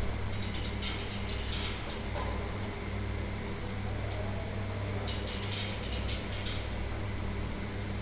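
Conveyor dishwasher with a motorised unloader running with a steady low hum. Two bursts of clinking ware come over it, about a second in and again from about five seconds in.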